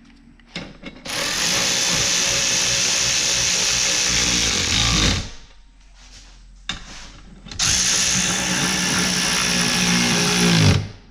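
Power drill driving bolts down through seat adapter brackets: two runs of about four seconds each, the motor's pitch dropping as each run stops, with small clicks of handling between them.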